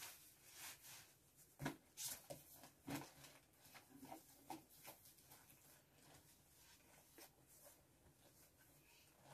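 Faint rustling of clothes and a few soft knocks as packed items are shifted around inside a cardboard box, loudest twice, about two and three seconds in.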